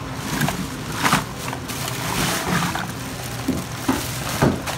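Plastic bags of seafood being pulled and shifted on crushed ice: crinkling plastic and ice rattling in several short bursts.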